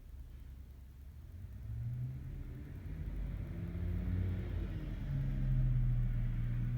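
A car passing outside: a low engine and road rumble that swells over several seconds, peaks near the end and then fades.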